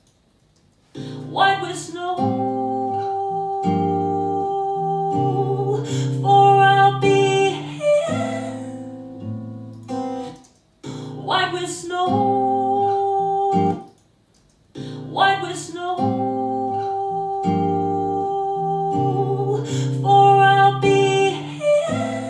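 Playback of a studio recording: acoustic guitar with a female voice singing long held notes. The same passage stops and starts over twice, as a take is replayed while choosing the best vocal sections.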